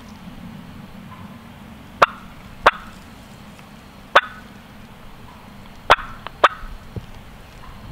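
Wild turkey hen clucking: five short, sharp clucks at uneven spacing, the loud cutting of an excited hen.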